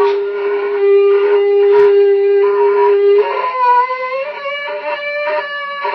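Two ram's-horn shofars blown together in one long, steady blast. About three seconds in, one drops out and the sound gets quieter; the other carries on at a slightly higher, wavering pitch.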